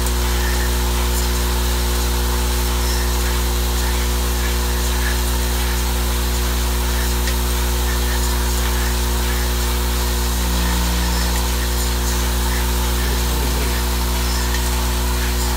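Vibratory bowl feeder and linear track of a small-tube feeding machine running: a steady electric buzz, with faint scattered clicks of the plastic tubes and the pneumatic pick-up head.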